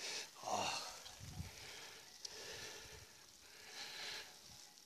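A cyclist's heavy breathing while pedalling up a steep climb, faint, with a couple of stronger breaths about half a second in and near the end.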